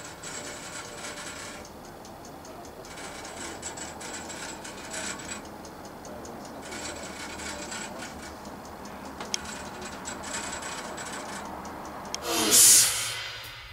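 Mechanical ticking and rasping in a locomotive cab, coming in spells of about a second and a half with short pauses between, repeating every three seconds or so. A short, louder hiss comes near the end.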